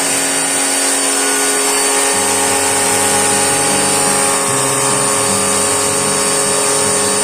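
Background music with a steady bass line and a dense, buzzing texture.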